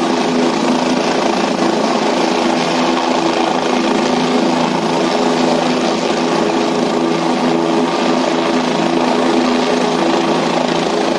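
Helicopter running on the ground with its rotor turning: a loud, steady drone of turbine engine and rotor, with several steady tones underneath.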